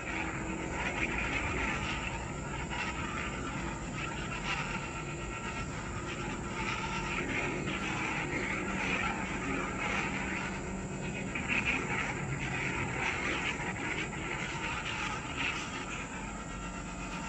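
Lightsaber sound effects from the Saberforge Katana Mk 1 hilt's Legacy Veteran soundboard speaker at full volume: a steady electric hum with swing sounds rising and falling as the blade is swung. The board has no smooth swing, so the swings are set sounds, not ones that follow the motion.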